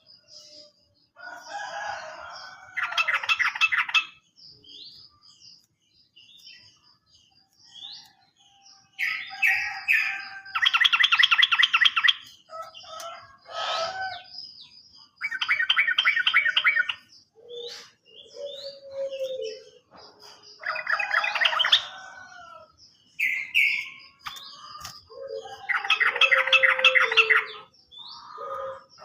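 Yellow-vented bulbul (trucukan) singing: about five bursts of rapid repeated notes, each about a second long, with shorter chirps and whistles between them.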